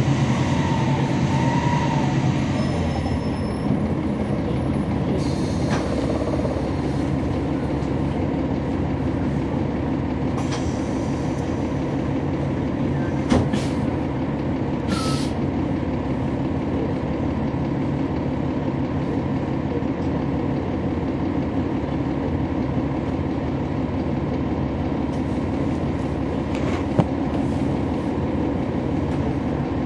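Interior sound of a NABI transit bus's Cummins ISL9 diesel engine running steadily. A few brief clicks and a short hiss about halfway through.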